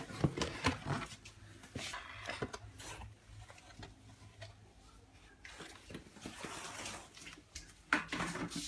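Light handling noises: scattered soft knocks and clicks with rustling, and a sharper knock near the end.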